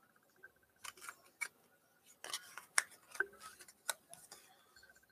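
Trading cards being handled and squared up: a scatter of light clicks and rustles as the cards are tapped and slid against each other.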